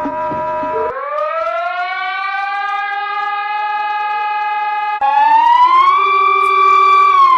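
Warning sirens from an emergency alert recording. About a second in, a steady tone cuts off and a siren winds up in pitch and holds. About five seconds in, a louder siren starts, rises, holds, and begins to wind down near the end.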